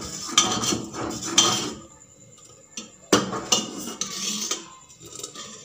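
Long-handled ladle scraping and knocking against the inside of a metal pot as rice is stirred in boiling milk, in two spells with a lull of about a second and a half in between.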